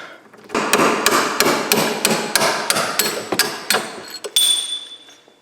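Hammer blows on a rusted leaf-spring shackle bolt, about three sharp metal strikes a second, driving the bolt out. The strikes stop about four seconds in and leave a fading metallic ring.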